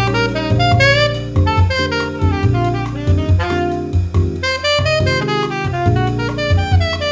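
Saxophone playing a jazz melody in quick rising and falling runs, over a band backing of drum kit and a low bass line.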